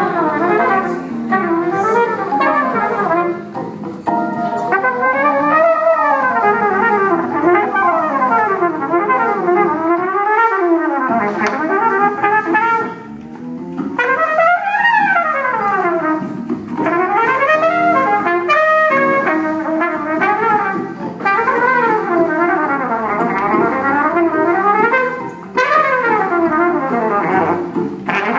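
Trumpet playing a stream of quick phrases that sweep up and down in pitch, with a Hammond organ.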